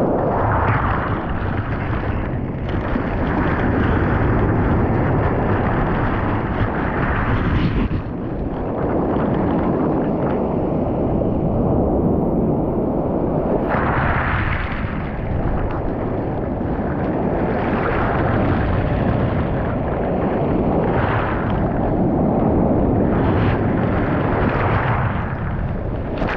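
Sea surf washing up a pebble beach and over a camera set at the waterline: a loud, rushing wash with a close, rumbling sound, swelling with each incoming wave every six or seven seconds.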